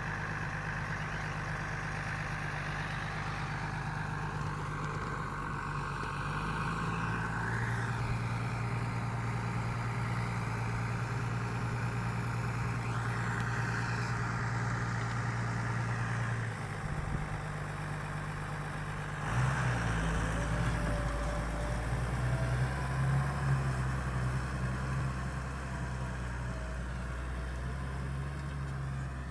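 Deutz-Fahr Agrotron 6.45 S tractor's diesel engine running steadily while ploughing. Its note shifts about seven seconds in, dips around sixteen seconds, then comes back louder about nineteen seconds in.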